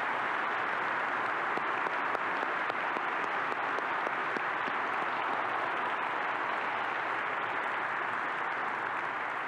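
Large congregation applauding steadily.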